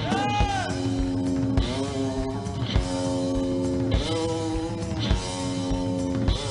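One-string diddley bow played with a slide through an amplifier, its note swooping up and down near the start and then holding repeated blues phrases, with a drum kit keeping the beat.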